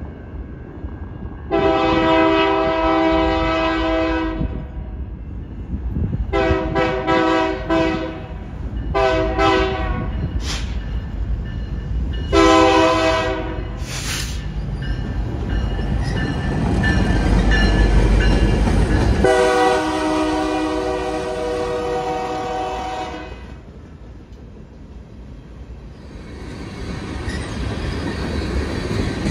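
BNSF locomotive 3032's multi-chime air horn blowing a grade-crossing signal as it approaches and passes: long, long, short, long, then one more long blast. Between the last two blasts the diesel engine rumbles loudly past, and the freight cars follow, rolling over the rail joints.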